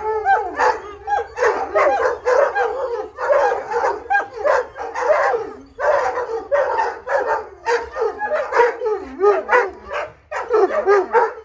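A pack of Irish wolfhounds, adults and puppies, howling together for a walk: many overlapping wavering howls that rise and fall, mixed with short yips and barks.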